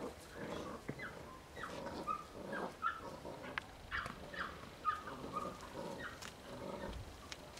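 Belgian Malinois puppy growling and whining in play as it tugs at a rag, with a string of short, high, falling squeaks between rougher low growls.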